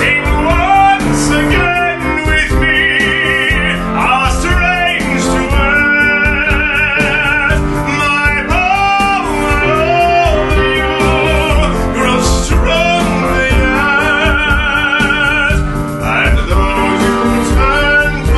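A woman singing in a trained voice with wide vibrato, holding high notes, accompanied by a grand piano.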